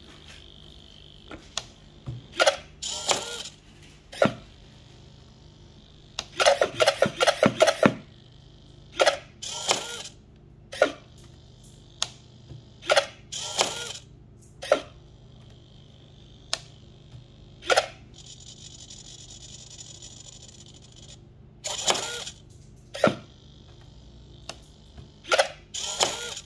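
Arduino-driven useless box at work: its toggle switch clicking, a small servo whining as the arm swings out to push the switch back, and the wooden lid clacking open and shut, over and over. About a quarter of the way through the lid chatters in a quick run of about eight clacks, and near two-thirds of the way through the servo whines steadily for about three seconds.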